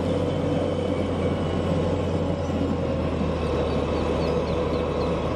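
Heavy diesel engines of a Caterpillar mining wheel loader and haul truck running with a steady low drone.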